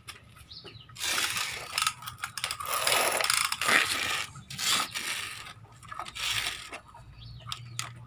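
Plastic wheels of a toy front loader rolling and rattling over rough concrete as it is pushed by hand, in uneven spurts.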